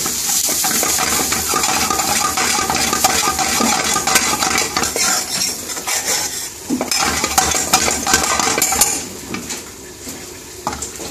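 Metal spoon stirring and scraping desiccated coconut, onion and cumin seeds around a hot oiled frying pan, with a light sizzle from the frying. The scraping eases for a moment near the end.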